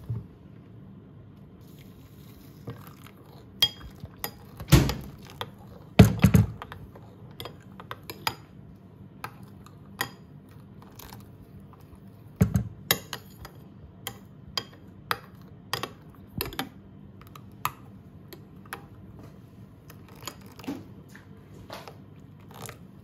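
A metal spoon clinks and scrapes against a ceramic bowl while gravy granules are stirred into water. It is a run of short, sharp clicks, with a few louder knocks among them.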